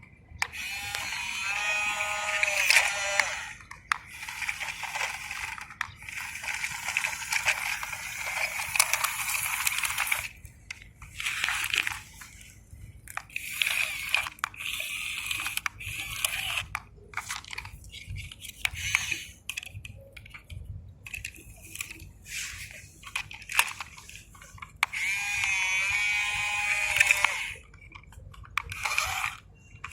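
Radio-controlled model excavator working: its small electric motor and hydraulic pump whine in stop-start bursts of a few seconds, rising and falling in pitch, over gritty crunching.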